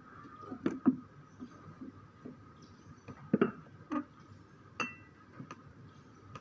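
Glassware clinking and knocking as it is handled, about half a dozen separate clinks, one ringing briefly about three-quarters of the way in.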